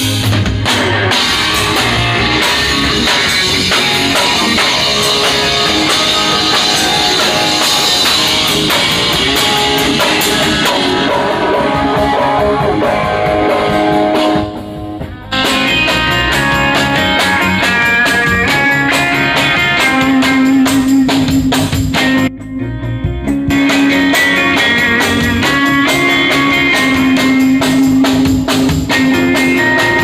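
Electric guitar, a Stratocaster-style solid-body, played through an amplifier, with a drum kit playing along. The music stops briefly twice, about halfway through and again about three-quarters through.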